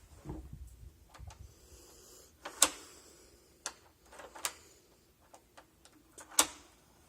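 Sharp clicks and clacks of a classroom-function door lock being worked: two loud clicks about two and a half and six and a half seconds in, with several lighter ones between.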